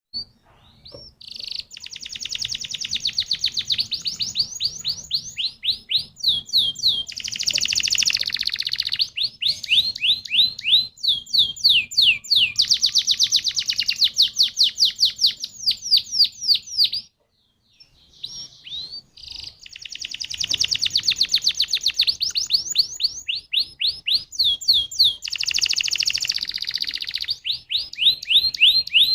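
Domestic canary singing long, rapid trills and rolls: runs of quick repeated sweeping notes, some so fast they blur into a buzz, with one short break midway.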